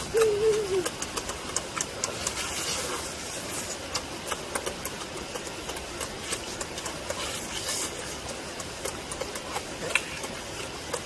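Close-up eating sounds of people gnawing and chewing braised pork legs: irregular wet smacks and clicks of lips, teeth and meat. A short falling 'mmm' of appreciation opens it.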